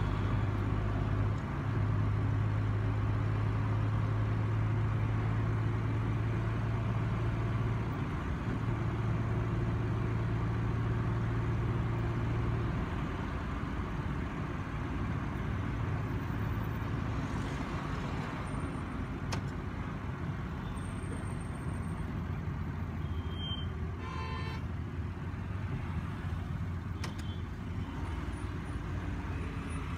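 Road noise heard from inside a moving car on a highway: a steady low drone of engine and tyres, heavier for the first dozen seconds and then easing. A short horn honk sounds once about three-quarters of the way through.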